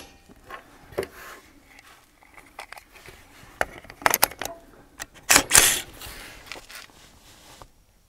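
Metallic clicks and clatter of a Guncraft AR-15-style rifle in 22 Magnum being handled after a jam caused by 30-grain ammunition too light to cycle the action: the magazine and action are worked by hand. There are scattered light clicks, with louder clusters a little past four seconds and again around five and a half seconds.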